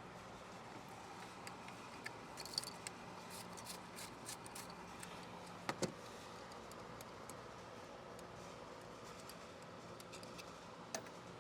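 Scattered small clicks and light rattles of ignition coils and their connectors being handled and moved under the hood, over a faint steady hum. The sharpest click comes about six seconds in, and another comes near the end.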